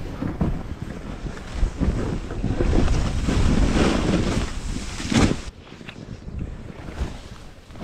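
Wind buffeting the microphone over the hiss of a snowboard sliding and spraying through powder snow. It is loudest in the middle and drops off suddenly about five and a half seconds in.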